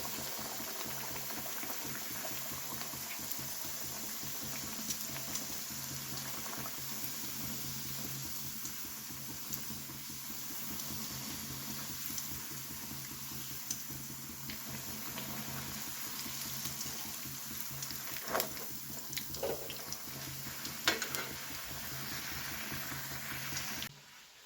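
Food cooking on the stove: a steady bubbling hiss of curry simmering or oil frying, with a few light clinks about three-quarters of the way through. The sound cuts off sharply shortly before the end.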